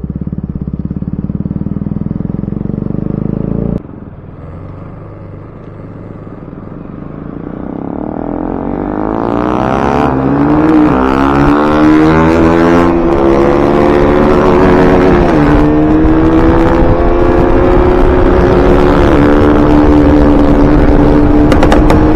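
Bajaj Pulsar NS200's single-cylinder engine with an Akrapovic aftermarket exhaust running steadily while riding. About four seconds in, it cuts off abruptly to a second motorcycle engine, quieter at first. That engine then rises in pitch as it accelerates, drops briefly twice at gear changes, and settles into a steady cruise.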